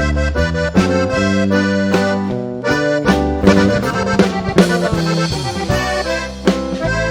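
Live band playing an instrumental break between sung verses of a song: an accordion-led melody over a steady bass line, with regular drum hits.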